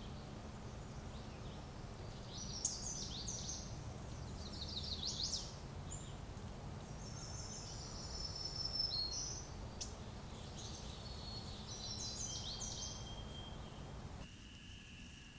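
Songbirds singing: several short phrases of high, quickly sweeping notes, heard over the steady low hiss of a trail camera's microphone.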